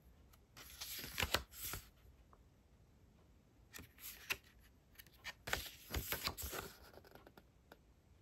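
Pages of a small glossy photo booklet being turned by hand: soft paper rustles in a few short sweeps, with quiet in between.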